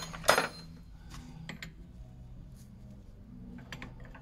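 Steel combination spanner clanking against the steering tie-rod nut: one sharp clank just after the start, then a few faint light taps, over a low steady hum.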